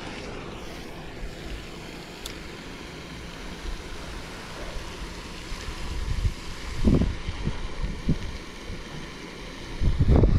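Wind blowing across the microphone over a steady rushing hiss, with stronger low buffeting gusts about seven seconds in and again near the end.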